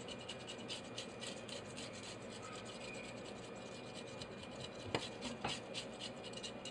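Scaling a fresh fish with a metal blade in a stainless steel sink: rapid rasping scrapes, about three strokes a second, as the scales come away easily. Two sharper clicks about five seconds in.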